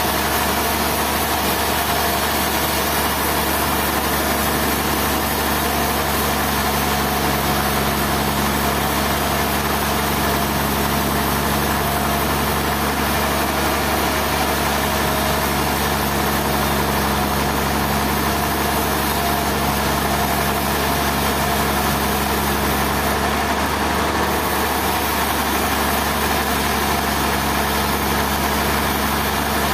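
Sawmill machinery running steadily: an even, engine-like hum with a constant hiss that holds the same pitch throughout.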